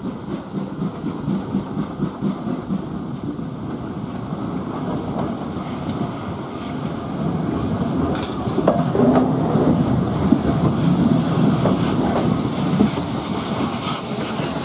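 GWR Small Prairie 2-6-2T steam locomotive 5542 propelling an auto-train past close by: rhythmic beats about twice a second at first, growing into a louder, steady rumble and clatter of wheels on rail, with steam hissing as the locomotive draws alongside near the end.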